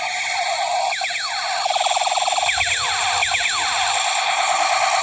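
Electronic sound effects from a toy blaster pistol: a steady warbling electronic tone, joined from about a second in by repeated quick falling zaps.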